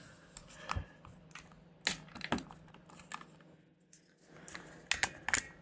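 Scattered light clicks and knocks, about half a dozen spread unevenly, from the camera and its mount being handled and repositioned.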